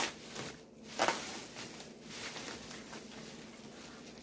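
Packing material rustling and crinkling as a small item is unwrapped by hand, with two short louder rustles about a second apart near the start, then quieter handling.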